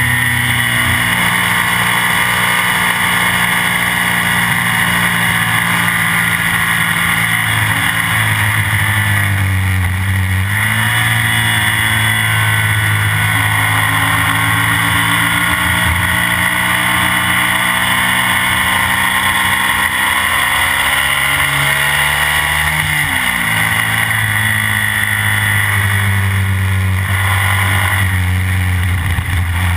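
Classic BMW racing sidecar outfit's engine running hard at high revs. The revs fall twice, around ten and twenty-three seconds in, and then climb again.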